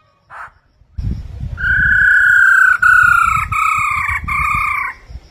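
Black-throated laughingthrush whistling four long, clear notes in a row, each falling slightly in pitch, over a low rumble.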